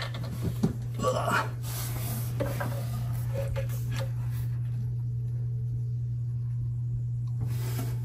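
Steady low hum, with a few light knocks and scrapes in the first second or two from a hand net being poked along wooden wall studs.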